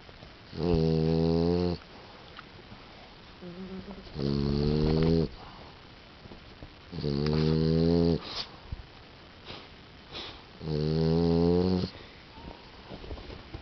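A pet snoring in its sleep: four loud, pitched snores of about a second each, coming about every three and a half seconds, with softer breathing noises between.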